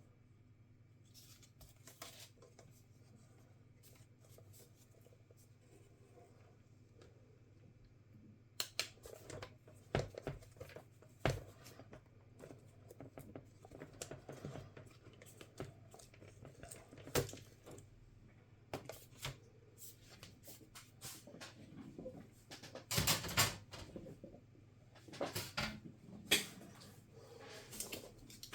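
Laptop disassembly handling noises: irregular clicks, taps and scraping of small tools and parts on the open laptop's plastic and metal, busier in the second half with a louder run of scraping clicks about two-thirds of the way through, over a low steady hum.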